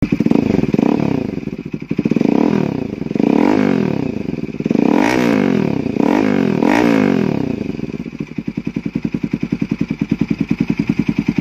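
Kawasaki NS200's single-cylinder engine revved repeatedly through an SC Project slip-on exhaust, about seven quick blips of the throttle, then settling about eight seconds in to an idle with an even, pulsing beat.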